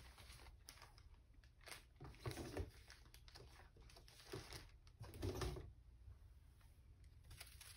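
Faint, scattered rustles and light clicks of paper craft pieces being handled and sorted, over quiet room tone.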